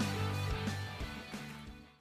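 Background music with a steady beat, about three beats a second, fading out toward the end.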